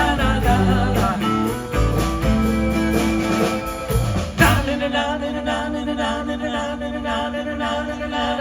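Live band playing the close of a song: drums, guitar and singing with a steady beat. A cymbal crash comes about four seconds in, then the band holds a final chord.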